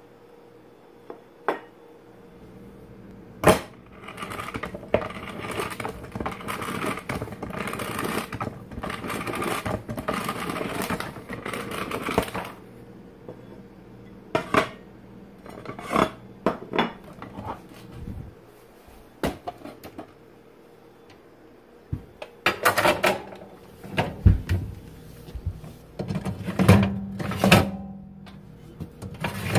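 A ceramic plate and a plastic microwave splatter cover being handled: scattered clinks and knocks against each other and a wooden counter, with a longer stretch of handling noise early on, then louder knocks as they are set inside a microwave oven.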